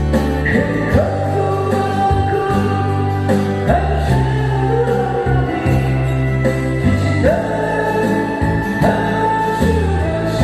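A solo voice singing a slow Korean ballad over instrumental accompaniment, with steady bass notes and a regular beat.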